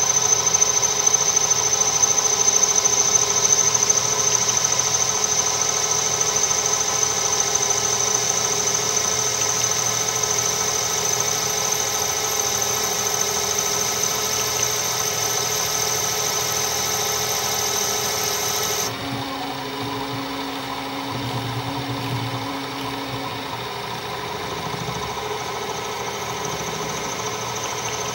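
A metal lathe running steadily while a carbide-insert tool makes a facing cut across a model brake drum, with a high steady whine over the machine's hum. About two-thirds of the way through, the whine drops out suddenly and the sound gets a little quieter.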